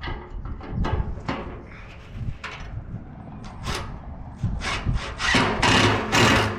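Irregular scraping and rubbing strokes, like hand work on a rough surface. They come short and scattered at first, then longer and louder near the end.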